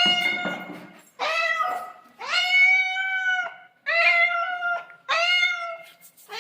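Domestic cat meowing over and over, about five long, high meows in quick succession, each rising at the start and then held. The cat is excited by the smell of fish.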